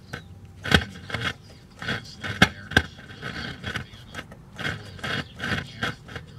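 Thin, tinny broadcast sound from the Magnavox console stereo's speaker coming through in irregular bursts, broken by sharp clicks and crackles, while the amplifier's dead channel is being probed.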